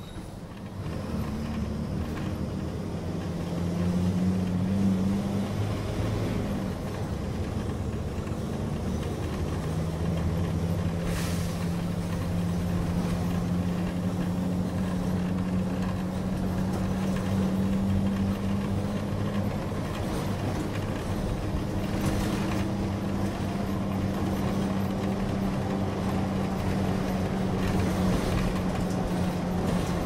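Mercedes-Benz O500M city bus's diesel engine running under way, heard from on board. Its pitch steps up and down several times in the first ten seconds, then holds fairly steady, with short hisses of air about 11 and 22 seconds in.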